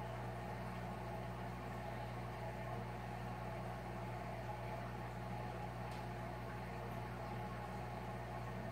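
Aquarium equipment running steadily: a low electrical hum with an even hiss of moving water and air bubbles.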